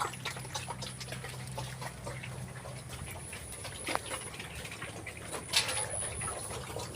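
Pigs eating wet mash feed: many small chewing and smacking clicks, with a couple of louder knocks about four and five and a half seconds in.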